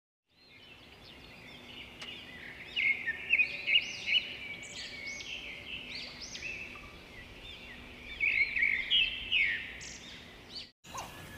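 Many small birds chirping and calling together in a busy chorus of short, quick chirps, with a few louder calls standing out; it fades in at the start and cuts off abruptly shortly before the end.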